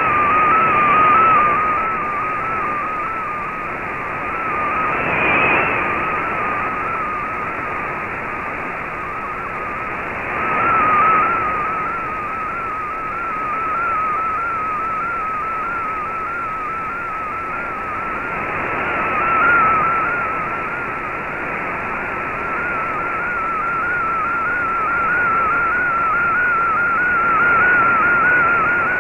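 Shortwave digital-mode picture transmission (MFSK image) heard through a receiver: one wavering, warbling tone that drifts slowly higher, over steady band hiss that swells up several times as the signal fades.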